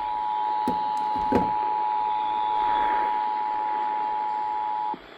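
Emergency Alert System attention signal: the two-tone alarm at 853 and 960 Hz held steady, with a few clicks about a second in, cutting off abruptly near the end.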